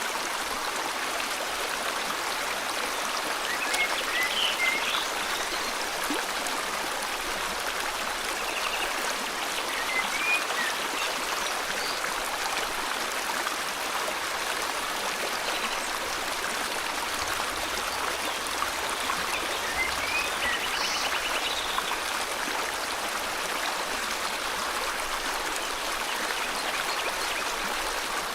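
River water flowing steadily in a tropical forest, with short bird chirps breaking in three times.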